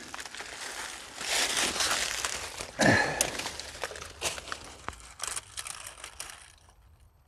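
Dry fallen leaves and brush crunching and crinkling as someone shifts their footing among them, with a heavier crunch about three seconds in and a few sharp crackles afterwards, dying away near the end.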